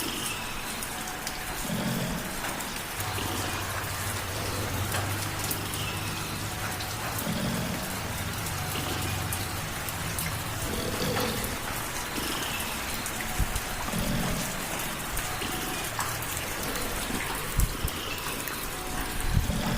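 Light rain falling, with many small drops ticking on a surface. A cat's purr runs low underneath, coming in repeated swells.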